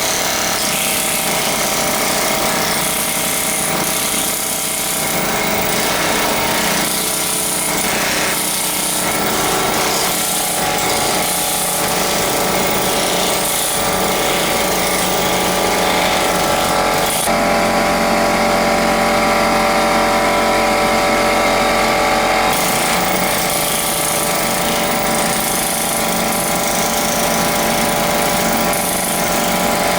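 Aircat long-stroke pneumatic air hammer chiselling into masonry, running continuously with rapid hammering. About two thirds of the way through, the sound changes for several seconds, losing its hiss and turning more tonal, before returning to the same hammering.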